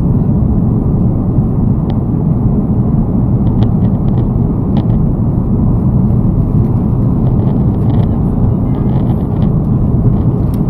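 Steady engine and airflow noise of an airliner in flight, heard from inside the cabin, with a few faint clicks.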